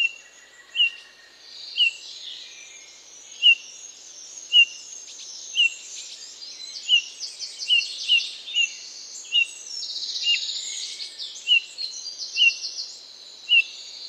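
Eurasian bullfinch calling: a series of short whistles, roughly one a second, which the narrator calls mournful. Other birds chatter faster and higher in the background.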